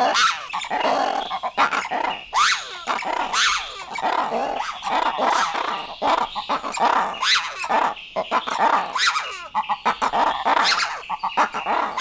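A group of black-and-white ruffed lemurs calling together in a loud chorus of many overlapping calls that rise and fall in pitch. This is their morning wake-up call.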